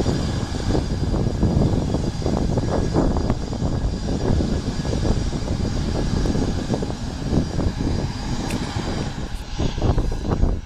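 Two rear-mounted turbofan engines of a Bombardier CRJ regional jet running as it taxis: a steady low rumble with a faint high whine above it.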